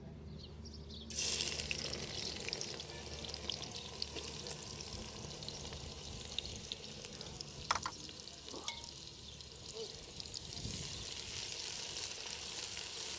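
Sliced onions dropped into hot mustard oil in a metal pot start sizzling suddenly about a second in, and the sizzle runs on steadily as they fry. A couple of sharp metal clicks on the pot come near the middle as the onions are moved about.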